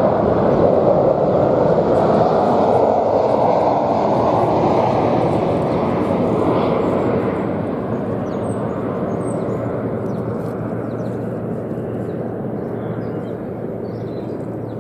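Aircraft passing overhead: a steady roar that slowly fades away. Faint small clicks sound near the end.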